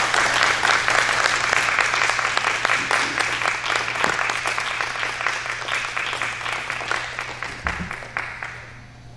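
Audience applauding, a dense patter of many hands that thins out and dies away near the end.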